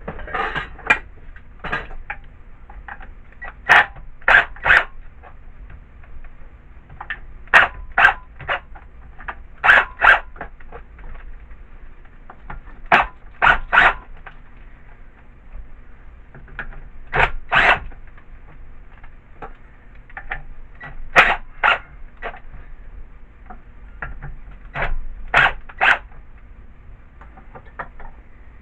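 Sharp metal clicks and taps in short groups of two or three, a group every few seconds: hand-tool work on an old air compressor's side plate as it is taken off.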